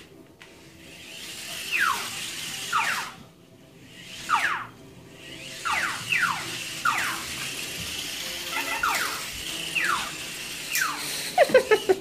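Parrot giving short, falling whistle-like squeals, singly or in pairs about once a second, with a quick run of lower calls near the end.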